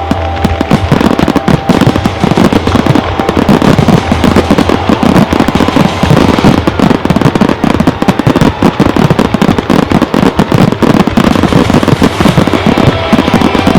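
Rapid, continuous fireworks barrage: many aerial shell bursts and reports in quick succession, packed closely together.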